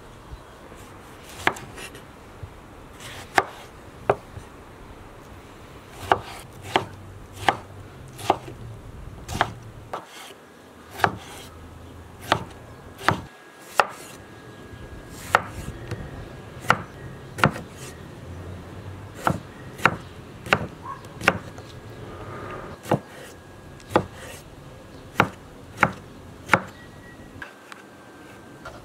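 Chef's knife chopping tomatoes on a wooden cutting board: sharp knocks of the blade striking the board, unevenly spaced at about one a second.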